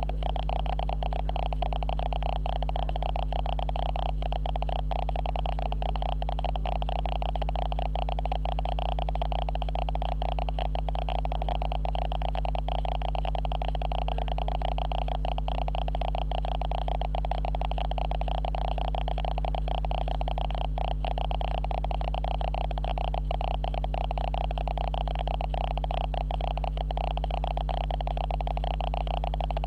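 Steady electrical hum and buzz with a fast crackle over it, the camera's own noise leaking onto the recording: a recording fault. It goes on without any change.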